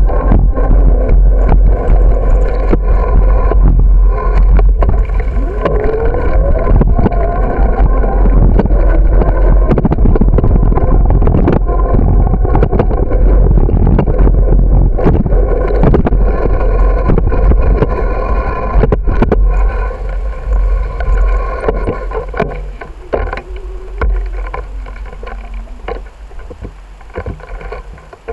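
Wind buffeting the microphone of a camera riding on a moving bicycle, over the rumble of the tyres on pavement, with frequent sharp knocks from bumps and cracks. It grows quieter in the last several seconds.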